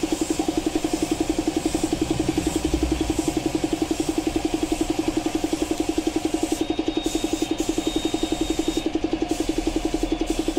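Piston air compressor running steadily with a fast, even throb, supplying the spray gun during spray painting.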